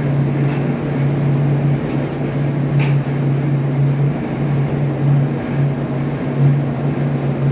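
Steady drone of a ship's engine-room machinery, with a low hum that holds one pitch, and one brief click about three seconds in.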